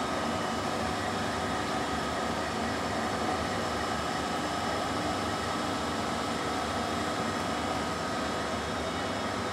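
Okuma LC50 CNC lathe running: a steady machine hum and hiss with a constant high whine running through it.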